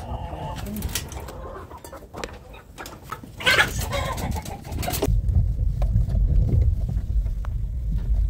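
Chickens clucking, with a loud call about three and a half seconds in; from about five seconds in, a steady low rumble sits under them.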